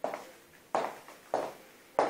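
Background music with a sharp percussive beat, about three hits in two seconds, evenly spaced.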